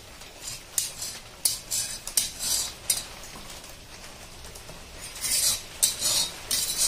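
A metal spatula scraping against a hot tava, working under the edge of a ragi bhakri to loosen and turn it. The scrapes are short and sharp: a few in the first three seconds, then a quick cluster near the end.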